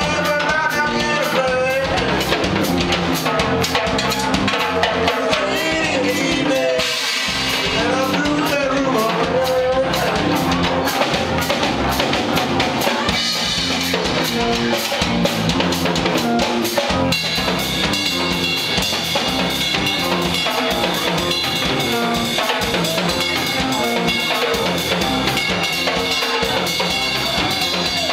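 Live rock band playing loudly, led by a driving drum kit with bass drum, snare and rimshots under bass and electric guitars. Sustained high guitar tones ring over the beat in the last third.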